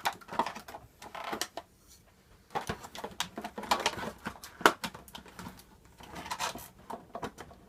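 Handling a box and its packaging: irregular rustles, scrapes and light taps as parts are pulled out.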